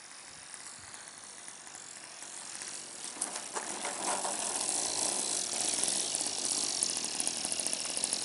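Evolution 15cc gasoline engine of a model plane running at low throttle with a rapid, clicky ticking, growing steadily louder as the plane lands and rolls across grass.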